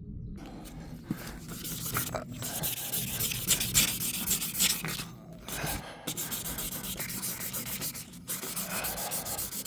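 Hand wet-sanding of Dolphin Glaze filler on a car panel: quick back-and-forth rubbing strokes, paused briefly a few times, as the glaze is flatted back to fill the scratch.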